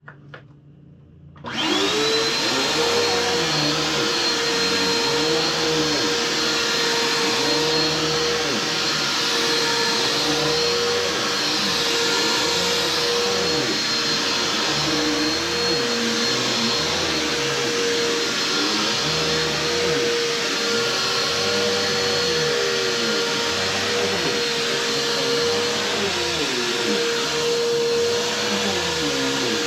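Bissell PowerForce bagged upright vacuum cleaner switching on about a second and a half in and running steadily with a high motor whine. A low sound swells and fades at an even rhythm throughout.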